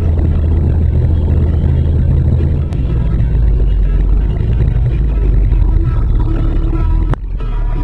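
Car driving along a street, heard from inside the cabin: a steady low rumble of engine and tyres, with a brief dip just after seven seconds in.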